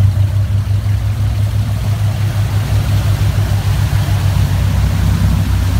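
Motorboat engine running steadily under way, a low even drone, with the rush of the churning wake water behind it.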